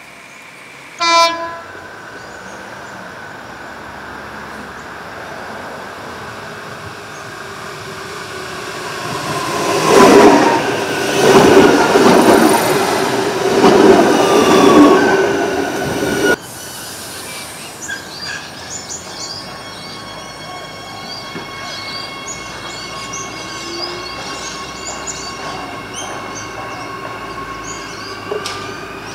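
Adelaide Metro 4000-class electric train giving a short horn blast, then passing close by with loud wheel and running noise for several seconds. After an abrupt cut it is heard quieter at the platform, with a steady whine of held tones.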